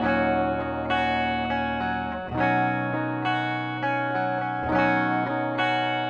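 Lavish CMRL-FL electric guitar played through its bridge pickup with a clean tone: chords strummed about once a second and left to ring.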